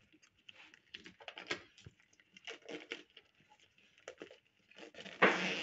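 Plastic shrink-wrap being peeled and torn off a cardboard box: scattered light crinkles and ticks, then a louder tearing crackle about five seconds in.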